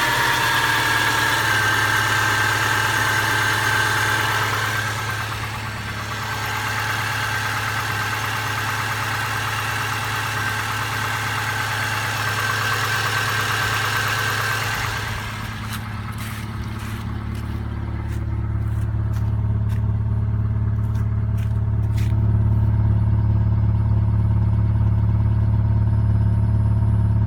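Subaru engine running with a knock that the owner puts down to the 4th cylinder. Early on its whine settles downward as the revs drop. From about 15 s it becomes a low, steady drone with a few sharp clicks.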